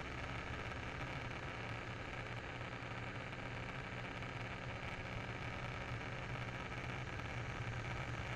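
Light biplane's piston engine running steadily in flight, with wind rushing past the open cockpit. The level holds even throughout, with no change in power.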